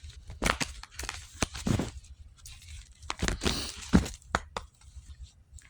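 A tarot deck being shuffled and handled: irregular sharp snaps of the cards with short papery rustles between them, the loudest snap about four seconds in.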